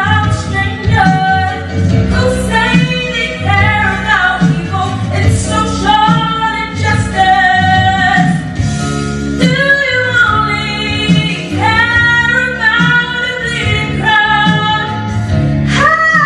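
A young girl singing a song solo, with held, bending notes, over instrumental accompaniment.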